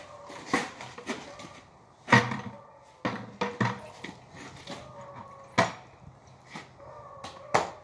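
Knocks and clunks of a plastic 5-gallon bucket and a steel minibike frame being handled as the bike's rear is lifted and its back tire set into the bucket: a string of sharp knocks, the loudest about two seconds in.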